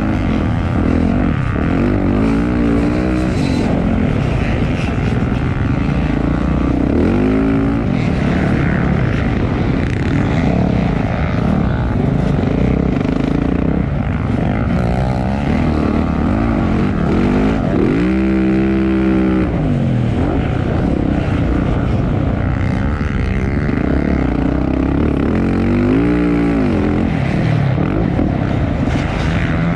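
Several motocross dirt bikes racing, their engines running hard and revving up and down. About two-thirds of the way in, one bike's engine stands out clearly above the rest, its pitch rising and then falling.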